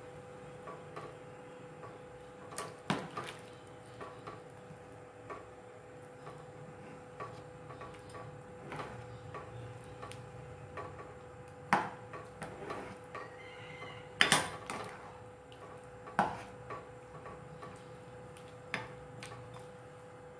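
Metal spoon and ladle clinking and knocking against an aluminium pressure cooker pot while stirring rice and vegetables in water. The clinks are irregular, with a few louder knocks, over a steady faint hum.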